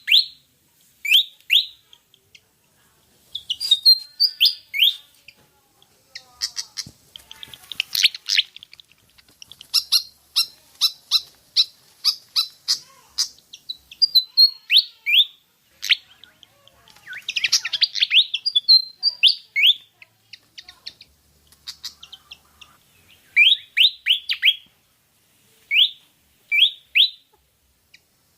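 Malaysian pied fantail (Rhipidura javanica) singing: phrases of short, rising whistled notes, separated by brief pauses, with longer runs of quick repeated notes twice along the way.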